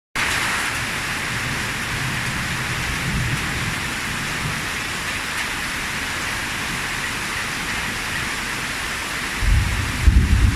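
Steady heavy rain falling, with a low rumble rising under it near the end.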